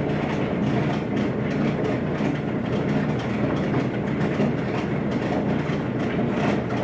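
A machine running steadily: a continuous rumbling clatter over a low hum.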